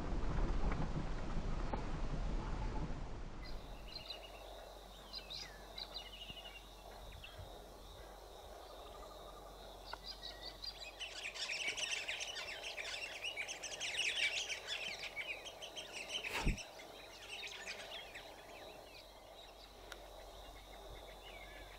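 A 4WD rolling slowly on a dirt track for the first few seconds, then galahs calling in many short calls, thickest in a dense chattering stretch in the middle. A single sharp click comes a few seconds after that stretch.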